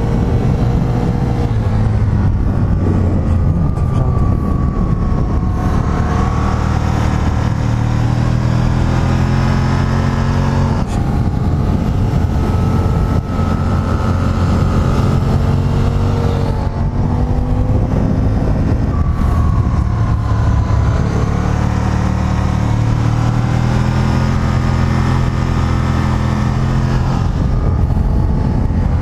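Aprilia Tuono 1000R's V-twin engine heard on board while riding, its pitch repeatedly climbing under acceleration and dropping back as the rider shifts gear and eases off for curves.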